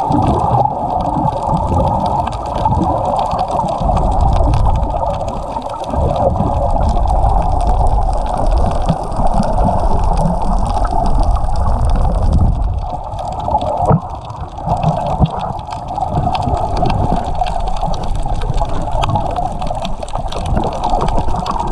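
Muffled, steady rush of water recorded underwater through a waterproof camera housing, with a low rumble that swells and fades.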